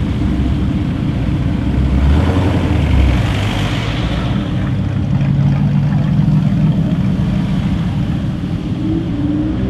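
A car engine running loudly and steadily, with a swell of noise that peaks about three seconds in.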